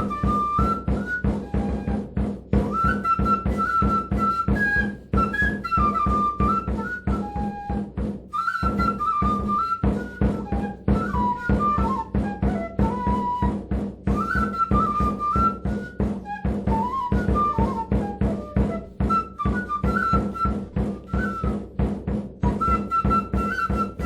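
Peruvian folk instrumental music: a high, flute-like ornamented melody over a fast, even pulse of plucked and struck notes with a steady low drone. The low notes break off briefly about eight seconds in.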